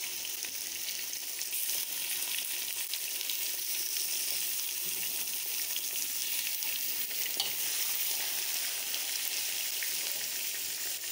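Raw chicken pieces sizzling in hot oil with fried onion, garlic and ginger in a wide steel pan, a steady frying hiss, while being stirred with a perforated steel skimmer and spatula.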